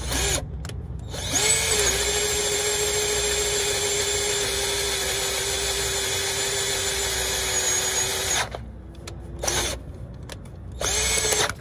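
Cordless drill boring through steel with a twist bit. It gives a couple of short trigger pulses, then one long steady run of about seven seconds with a steady motor whine, stops, and gives two more short bursts near the end. The battery is running low and the bit keeps catching in the steel.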